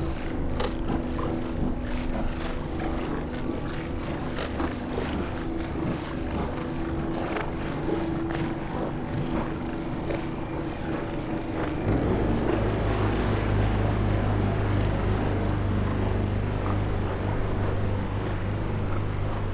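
Motorboat engines running at low speed with a steady hum. About twelve seconds in, a deeper, louder engine drone sets in and holds.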